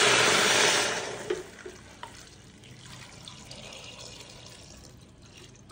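Water poured into a pressure cooker holding jackfruit pieces: a loud splashing pour that tapers off and stops about a second and a half in, followed by a couple of light clicks.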